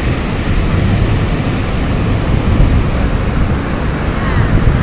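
Steady rush of ocean surf breaking on the beach, with wind rumbling on the microphone.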